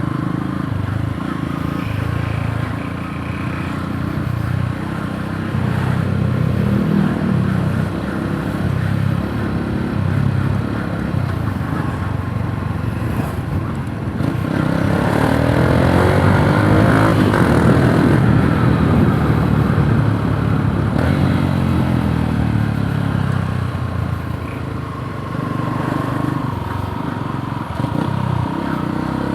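Yamaha YTX 125 cafe racer's single-cylinder four-stroke engine running under way. It revs up and grows louder about halfway through as the bike accelerates, then the revs fall away again as it eases off.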